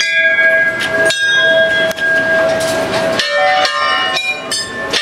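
Hindu temple bells rung by devotees: metal bells struck one after another, each ringing on. A few strikes come about a second apart, then from about three seconds in several bells of different pitches are struck in quicker succession.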